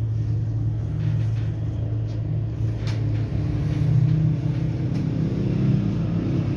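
A steady low machine hum, pitched and unchanging, with a few faint clicks.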